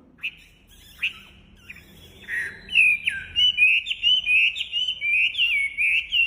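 Wambi songbird singing. Two short high notes come in the first second, then from about two seconds in a fast, unbroken run of whistled notes that slide up and down.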